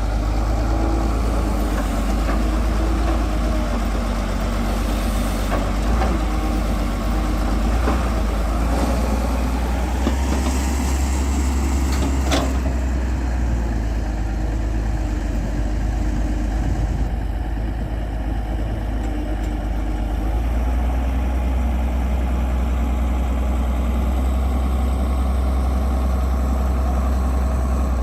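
Excavator's diesel engine running steadily with a deep, even drone, with a few short knocks, the sharpest about twelve seconds in.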